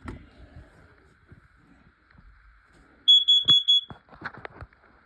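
Smoke alarm sounder giving a quick run of about four loud, high-pitched beeps about three seconds in, followed by a few short knocks.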